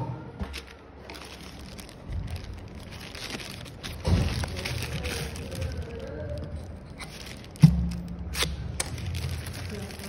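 Plastic courier mailer bag being handled and pulled open, its thin plastic crinkling and rustling, with a thump about four seconds in and a sharper knock near eight seconds in as the bag is moved on the mat.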